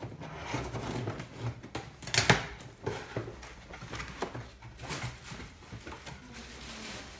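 Handling noises from a boxed air fryer being moved about: a string of knocks and scrapes of cardboard and packing, the loudest knock about two seconds in.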